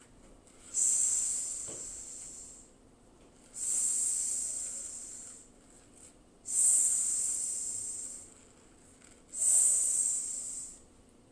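A woman making the letter sound "sss" four times, each a long hiss of about two seconds with short pauses between: the phonetic sound of the letter s.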